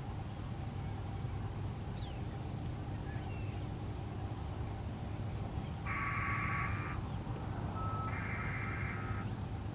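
Radio unit of an ATI outdoor warning siren sounding two bursts of several high electronic tones at once, each about a second long, the second led by a short single beep, over a steady low background rumble.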